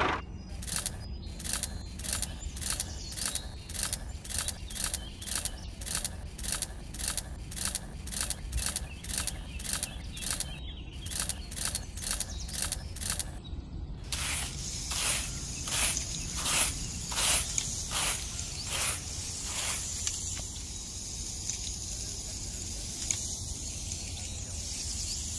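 Sand and seeds being worked by hand in a tabletop sandbox field: soft rhythmic swishes about twice a second, louder for a few seconds around the middle, then a steady sandy hiss as a small tool scrapes through the sand.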